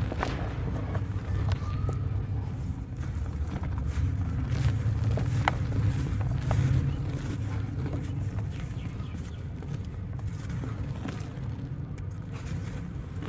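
Dry, dusty dirt crumbled and squeezed by hand, with soft crunching and scattered small crackles as lumps break and powder falls into a plastic basin, over a steady low rumble.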